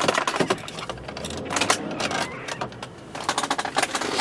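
A series of clicks, knocks and rustles of hands handling plastic parts in a car interior, as the removable handheld camera unit is put back into its charging dock low on the centre console.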